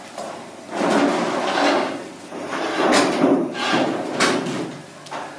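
Spit roast over an open wood fire: sharp crackling pops, several in the second half, with two longer rasping swells, the first about a second in and the second around three seconds.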